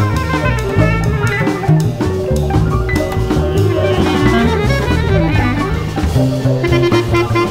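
Bass clarinet playing a solo line in its low register over a jazz-style ensemble with drum kit.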